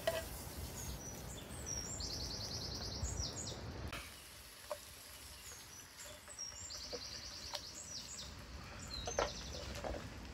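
A songbird singing, two phrases about six seconds apart, each built around a fast high trill with a few chirps around it. Beneath it is a steady low outdoor noise and a few faint clicks.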